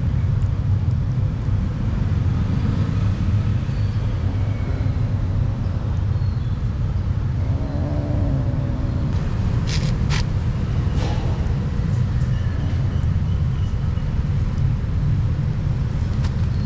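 Steady low outdoor rumble, with a few sharp clicks about ten seconds in.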